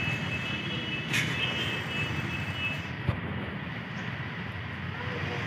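Outdoor background noise: a steady low rumble of distant road traffic, with a faint high steady tone in the first second or so. There is a brief click about a second in and a low knock about three seconds in.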